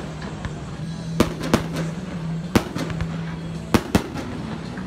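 About five sharp bangs or pops at irregular intervals, the loudest about two and a half seconds in, over a steady low hum.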